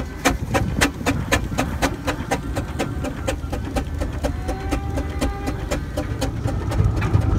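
Wallis & Steevens steam traction engine working on the move: an even, rapid beat of sharp chuffs, about four to five a second, over a low rumble. The beat fades about halfway through, leaving the rumble.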